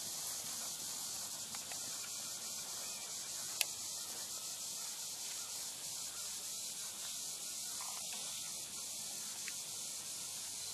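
Steady high-pitched hiss, with one sharp click about three and a half seconds in.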